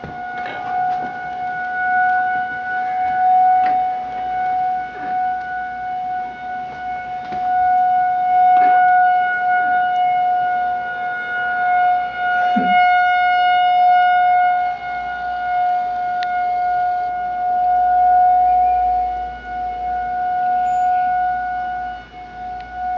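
Outdoor emergency warning siren sounding its weekly test: one steady tone that swells and fades every four to five seconds.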